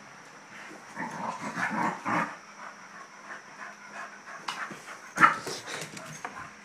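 Two dogs panting in rough bursts as they play together on a bed, with one sharp, loud noise about five seconds in.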